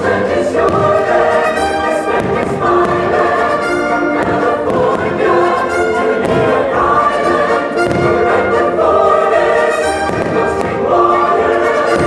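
Fireworks show soundtrack playing over the park speakers: a choir singing an American folk song with orchestra. A few short firework bursts sound through it.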